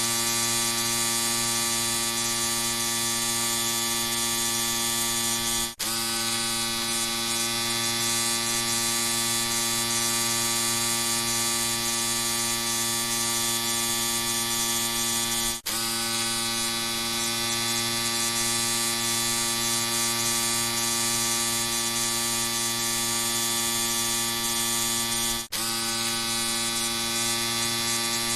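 Electric shaver running with a steady buzzing hum, dropping out for an instant three times, about ten seconds apart.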